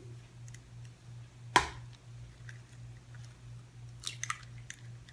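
A raw egg cracked on the edge of a mixing bowl: one sharp tap about a second and a half in, then faint small clicks and wet squishing as the egg goes in.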